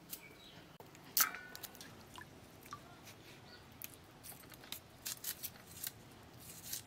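Red onion being sliced on a bonti, a curved blade fixed upright in a wooden base: a string of short, crisp cutting snips, with a sharper click about a second in.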